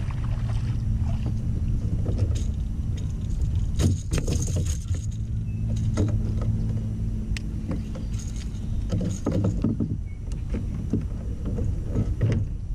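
Steady low wind rumble on the microphone and water lapping at a kayak hull, with scattered short knocks and rattles of rod and gear being handled aboard the kayak.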